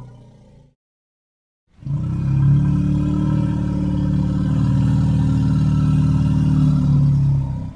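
Sauropod dinosaur sound effect: after the tail of the previous call fades into a second of silence, one long, deep, steady bellow starts about two seconds in and holds for about six seconds before fading out.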